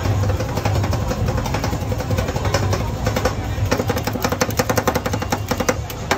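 Two metal spatulas chopping and scraping chocolate ice cream on a steel cold plate: quick metallic taps and scrapes, coming thicker and faster in the second half. A steady low hum runs underneath.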